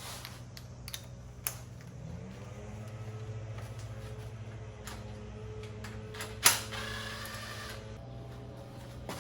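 Tool work on a car engine: a few sharp metallic clicks and one loud metal clank that rings briefly, over a steady low hum. A tone rises about two seconds in and then holds for several seconds.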